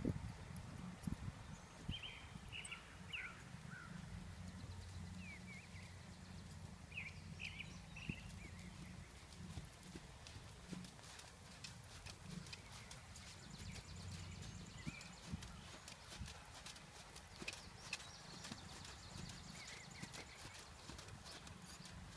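Friesian horse trotting under saddle on sand arena footing: quiet, steady hoofbeats. Birds chirp briefly now and then.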